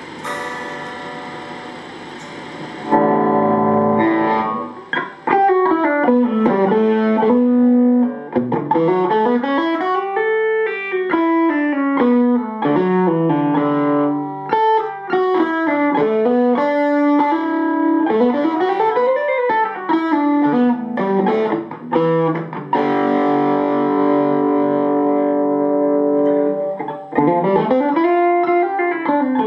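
Distorted electric guitar played through an AMT B1 JFET preamp pedal. It starts quietly, a loud held chord comes in about three seconds in, then fast runs of single notes climb and fall, and held chords return near the end.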